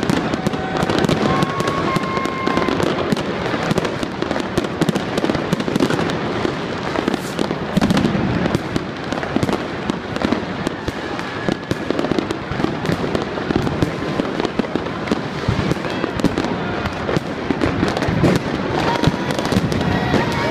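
Non-stop barrage of New Year's fireworks and firecrackers: dense, overlapping bangs and crackles with no pause, rockets bursting overhead.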